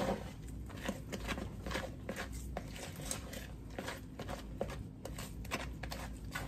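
Spatula stirring and scraping thick cake batter in a mixing bowl: a run of irregular soft scrapes and light taps against the bowl.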